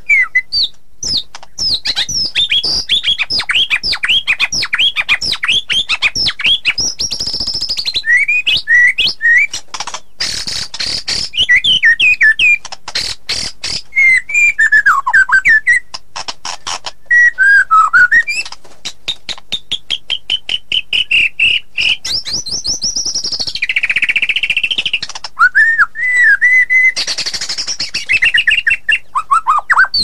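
White-rumped shama (murai batu) singing a loud, varied song without pause: clear whistles, slurred falling notes and fast runs of sharp chips.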